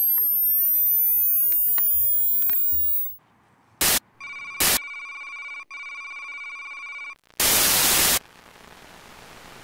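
Electronic sci-fi transition effects. Sweeping synthetic tones glide up and down at first. Then come two short bursts of static, a steady electronic buzz, and a louder burst of static near the end, which gives way to a faint steady hiss.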